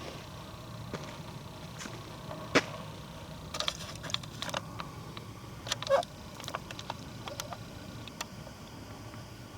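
Footsteps crunching on a forest trail: irregular snaps and crackles, loudest about two and a half and six seconds in, over a steady low rush of wind.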